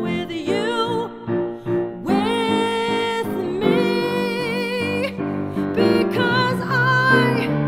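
A woman singing to her own grand piano accompaniment, holding long notes with vibrato over sustained piano chords.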